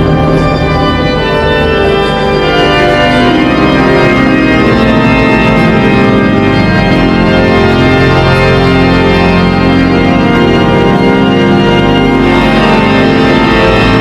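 Organ improvisation in a romantic, symphonic style: full sustained chords over a deep held bass, the harmony shifting every second or two.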